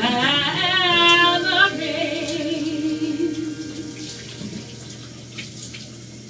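A singer holding the last wavering, wordless notes of a song, a high note and then a lower one that fades out about four seconds in, over the steady hiss of a running shower.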